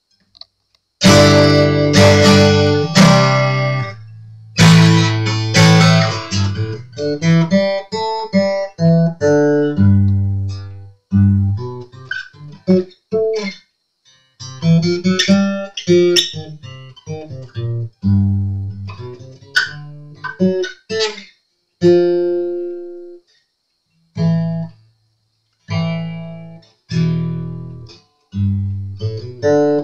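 Steel-string acoustic guitar, freshly restrung and tuned, played: loud strummed chords over the first few seconds, then picked single notes and short chord phrases with a few brief pauses.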